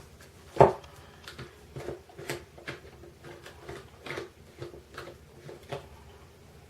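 A hand tool clicking against a VAZ 2101 mechanical fuel pump while its screws are being unscrewed. One sharp knock comes about half a second in, followed by a string of lighter, irregular metal clicks.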